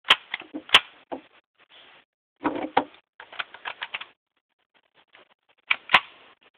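Ruger 10/22 .22 LR semi-automatic rifle firing: two sharp shots less than a second apart, then a third near the end. Lighter clicks and clatter come in between.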